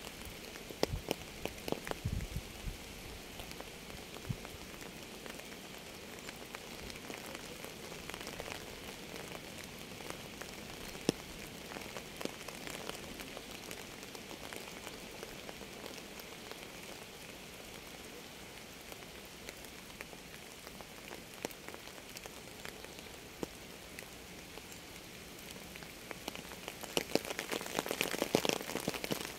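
Rain falling steadily on a surface, with scattered louder single drops; the patter grows denser and louder for a couple of seconds near the end.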